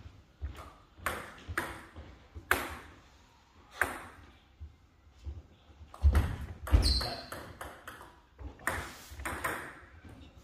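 Table tennis ball clicking off bats and the table in short rallies: sharp single hits at uneven gaps. About six seconds in come two heavier, low thumps.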